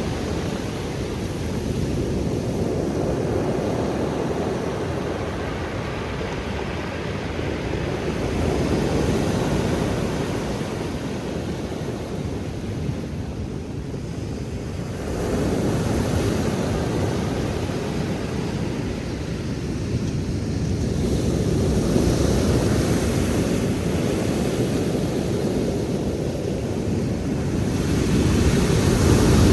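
Black Sea surf washing onto the shore, a steady rushing noise that swells and eases every several seconds as the waves come in.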